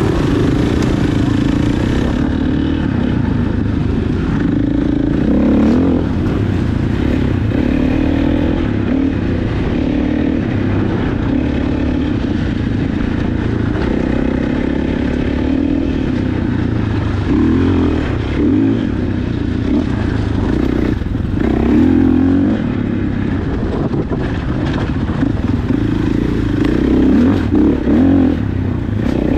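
Dirt bike engine running under load while being ridden on a trail, revving up and down repeatedly as the throttle opens and closes.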